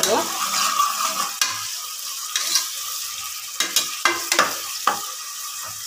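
Chopped onions sizzling steadily in hot oil in a pressure cooker, stirred with a metal ladle that scrapes against the pot several times.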